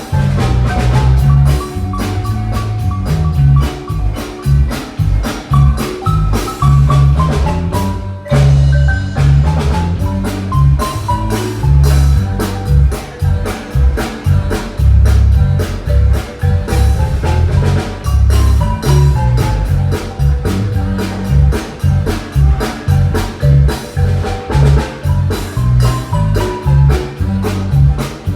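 Loud music with a heavy, regular bass beat and a melody running over it, cutting out for a moment about eight seconds in.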